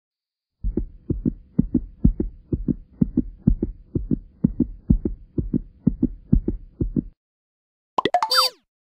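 Heartbeat sound effect: regular paired low thumps, about two to three a second, starting about half a second in and stopping abruptly about seven seconds in. Near the end comes a brief falling whistle-like sound effect.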